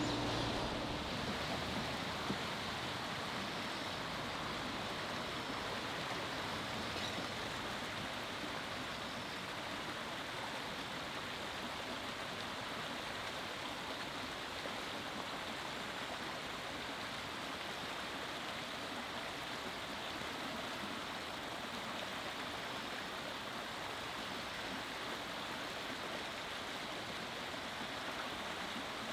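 Running water, a steady even rush.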